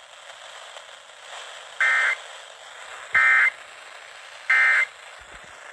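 Three short bursts of EAS digital data tones, a rapid two-tone warble, about a second and a third apart over weather-radio static: the end-of-message (NNNN) code that closes a NOAA Weather Radio alert. The static cuts off suddenly near the end.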